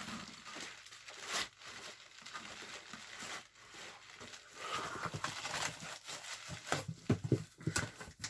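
Packaging being handled as a shipping box is opened and a bubble-wrapped item unpacked: rustling, crinkling and scraping, with several knocks near the end.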